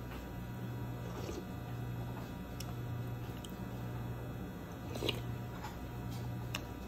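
Quiet eating sounds from a ceramic soup spoon, bowl and mouth: a few light clicks and taps, the sharpest about five seconds in, over a steady low hum.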